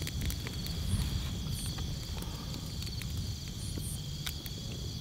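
A steady high chirring chorus of night insects, with scattered sharp crackles from a burning wood campfire.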